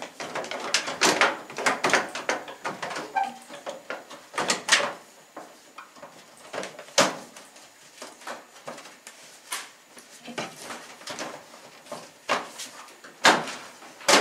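Charcoal filter and vent grille panel of a Samsung over-the-range microwave being slid into place by hand: an irregular string of clicks, knocks and scraping, with a sharper knock near the end.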